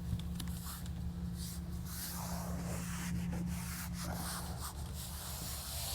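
Irregular rubbing and scraping strokes on a paper-faced Hydrotrim drywall corner as it is worked by hand, over a steady low hum.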